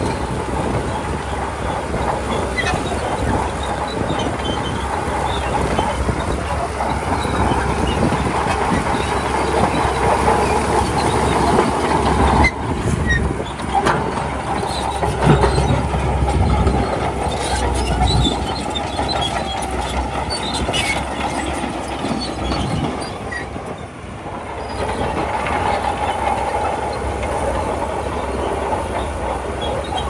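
Shantui crawler bulldozer working stone: steady machine noise with continuous metallic track clanking and squealing, and several heavy knocks of rock in the middle. The noise drops briefly about three quarters through, then picks up again.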